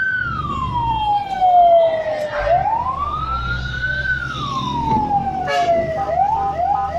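Fire truck's siren wailing in slow rising and falling sweeps, switching to quick short rising yelps about six seconds in, over the truck's engine running, heard from inside the cab.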